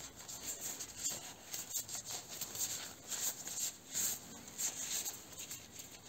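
Thin disposable nitrile gloves being pulled onto the hands: irregular rustling and crackling as the rubber stretches and rubs.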